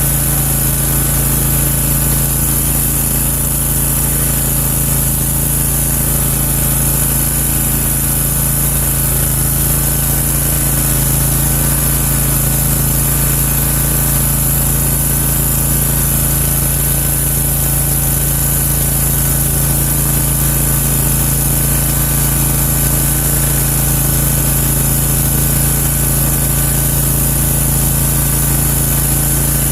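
Country Clipper zero-turn mower's engine running steadily at a constant speed, with an even hum and a hiss on top.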